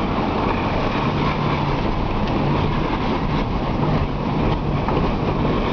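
Car driving steadily: engine hum and tyre and road noise heard from inside the cabin.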